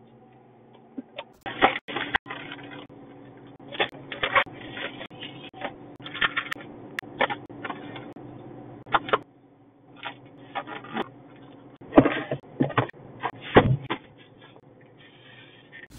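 Hands rummaging and packing small items into a car's center console and a fabric organizer: irregular clatter, knocks and crinkling of plastic pouches over a steady low hum.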